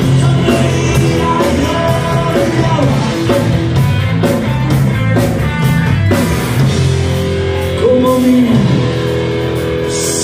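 Rock band playing live: electric guitar, bass and drums with a male singer.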